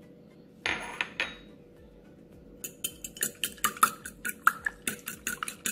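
A fork beating raw eggs in a ceramic bowl, clinking rapidly against the bowl about five times a second from a little over two and a half seconds in. Before it, a brief scraping rustle about half a second in.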